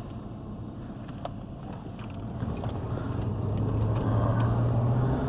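A vehicle's engine and road noise heard from inside the cab while driving: a steady low rumble and hum that grows louder from about halfway through.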